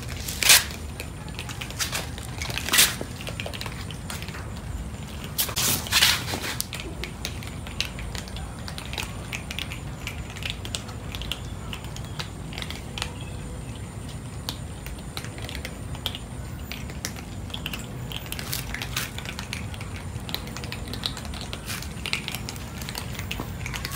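Many cats crunching dry kibble: a steady patter of small, irregular crunches and clicks, with a few louder crunches in the first six seconds.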